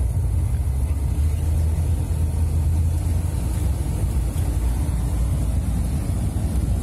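Camper van driving, heard from inside the cab: a steady low rumble of engine and road noise.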